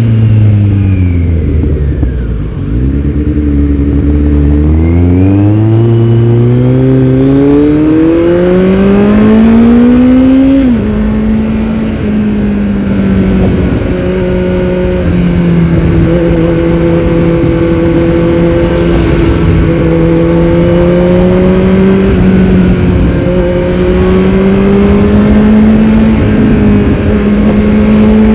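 Kawasaki Z900's inline-four engine through a Yoshimura R77 full-system exhaust, heard from on the bike while riding. It winds down in the first couple of seconds, then pulls up steadily through the revs until a quick drop at a gear change about ten seconds in. After that it holds a steady cruising note that rises and falls a little.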